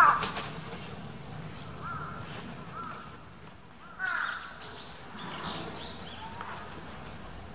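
Birds calling outdoors: a loud call at the start, two short calls about two seconds in, and a burst of high chirping about four seconds in.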